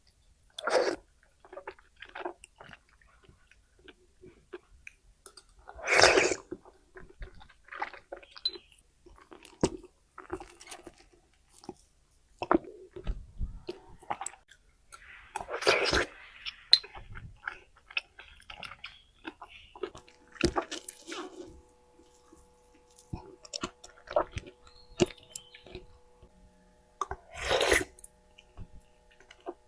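Close-miked chewing of popping boba: irregular wet clicks and squishy mouth sounds, with a few louder bursts spread through.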